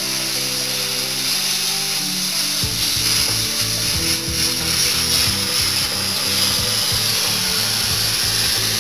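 Compressed-air-fed oxyhydrogen (HHO) torch flame hissing steadily as it cuts a steel plate. Background music plays under it: held chords at first, joined by a steady beat about two and a half seconds in.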